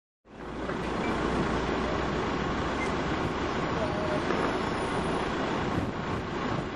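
A vehicle engine running steadily under an even rushing noise, cutting in abruptly just after the start.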